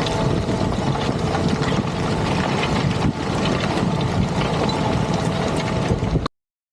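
Fendt 936 tractor running steadily under load while pulling a Lemken plough through the soil, a dense rumbling engine noise that cuts off abruptly near the end.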